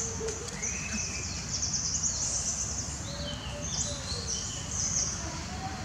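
Outdoor nature ambience: repeated high-pitched chirping and trilling, some phrases stepping down in pitch, over a low steady rumble.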